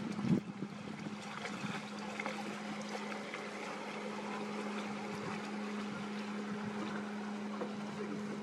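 Boat engine running with a steady low hum as a motor cruiser passes close by on the river, over a light hiss of water and wind. A brief bump sounds at the very start.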